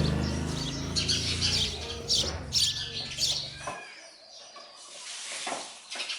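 Sparrows chirping in short high calls. Under them a steady low machine hum runs, then cuts off suddenly a little before four seconds in.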